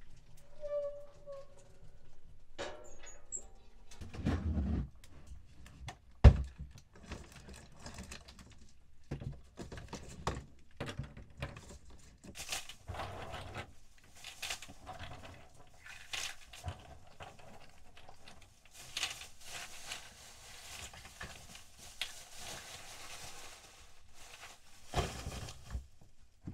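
Irregular knocks, clatter and scraping of things being handled, with a single sharp knock about six seconds in and dull thuds now and then.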